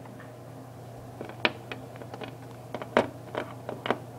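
Scattered light clicks and taps, about a dozen at irregular spacing, over a low steady hum.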